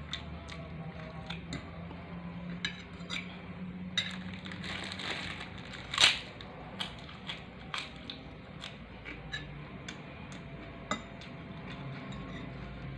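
Metal utensil clinking and scraping against a pan or plate of fried noodles in scattered sharp clicks, with one louder clatter about six seconds in, over a steady low hum.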